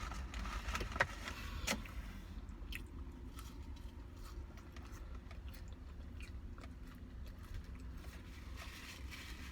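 A person chewing and biting fast food, with a couple of sharper crunches in the first two seconds and softer chewing after, over a low steady hum.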